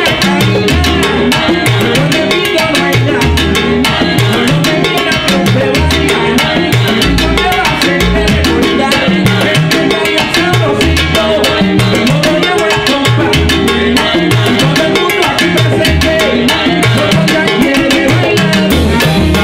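Salsa big band playing live: a steady, loud groove driven by hand drums and percussion over a repeating bass line.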